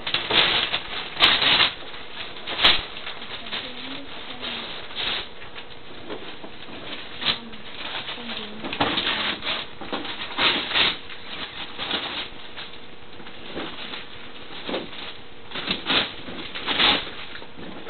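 Wrapping paper being torn and crumpled off a gift box in irregular rips and rustles, several louder tears among the softer crinkling.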